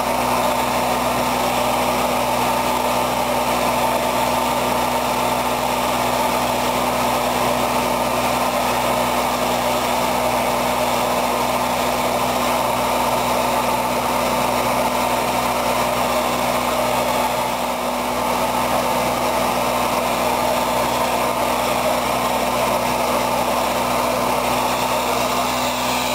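Spray-injection pothole-patching machine running with a steady, unchanging drone, its engine and air blower driving crushed stone and bitumen emulsion out through the hand-held nozzle.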